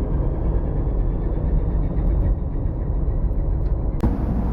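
Ship's diesel engine running with a steady deep rumble and faint whine, as heard aboard during a sea trial. About four seconds in the sound changes abruptly to a hissier, windier mix.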